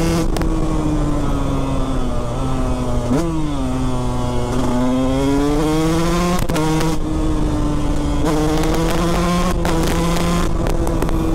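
KTM 125 SX two-stroke single-cylinder engine running hard on the road, its pitch sagging, then jumping up sharply and falling back about three seconds in, then climbing again and holding. Wind rumbles on the microphone underneath.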